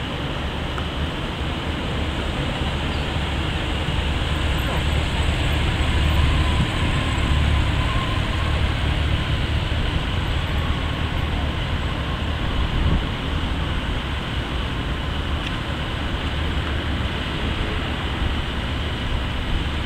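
Land Rover Defender pickup driving slowly closer, its engine and tyres heard over a steady low rumble of road traffic.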